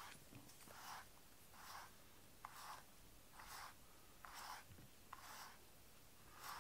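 Steel-pin slicker brush drawn through a cat's fur in soft, even strokes, about one a second.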